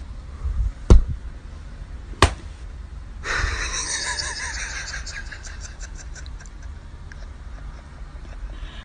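Quiet room sound with a low rumble, two sharp knocks in the first few seconds, then a faint breathy hiss from about three seconds in.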